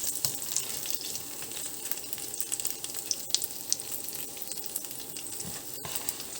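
Prawn gyozas sizzling in a frying pan: a steady crackling sizzle with scattered small pops.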